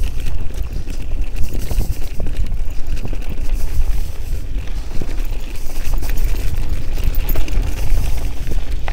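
Wind buffeting the microphone of a moving bike's camera: a steady, loud low rumble.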